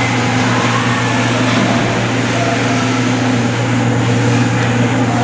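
Steady low machine hum that does not change, with faint indistinct voices underneath.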